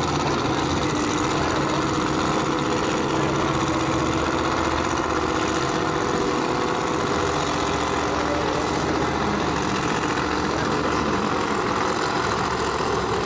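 Loud, steady idle of a big drag-racing engine as the car creeps up to the starting line after its burnout.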